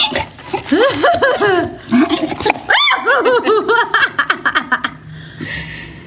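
A person laughing in a long run of short bursts, several a second, that dies down near the end.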